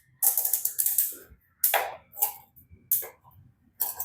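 Handling noises from small objects being picked up and moved: a rustle lasting about a second, then several short, irregular clacks and scrapes.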